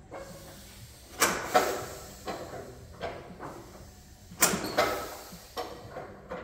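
Irregular metal clunks and knocks as parts of a vintage crawler tractor are worked by hand, about nine in all, each echoing briefly off the hard walls of the shop. The loudest come about a second and a half in and about four and a half seconds in. The engine is not running.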